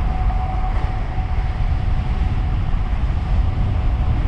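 Heavy wind buffeting and rumble on the camera's microphone while riding the electric tandem bike at speed, with a faint steady high whine that fades away over the first couple of seconds.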